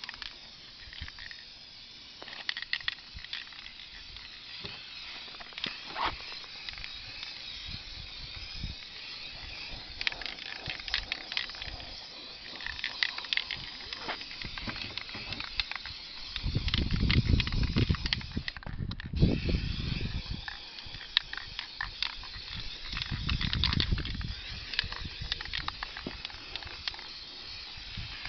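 Rust-Oleum Painter's Touch 2X Ultra Cover aerosol spray paint hissing as it is sprayed onto a plastic RC truck body, with a short break a little past the middle. Several low rumbles on the microphone are the loudest sounds.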